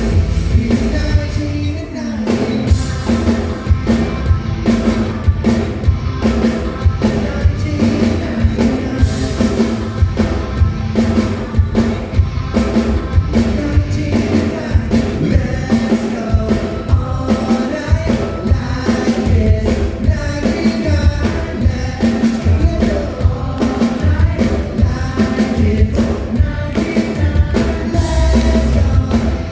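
A pop-rock song with singing over a band and drum kit, played loud through a venue sound system.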